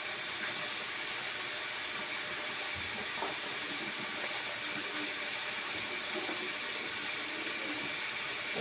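Pork leg pieces sizzling as they fry in hot oil while browning: a steady hiss with a few small pops.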